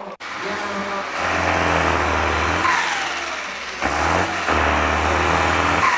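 Blue Belarus tractor's diesel engine revving hard twice while the tractor stands hooked to the pulling sled and blows black smoke. Each burst ends in a falling whine as the revs drop.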